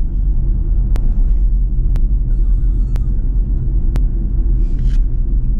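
Steady road and tyre rumble heard inside the cabin of a Ford Mustang Mach-E electric car on the move. A faint tick comes about once a second.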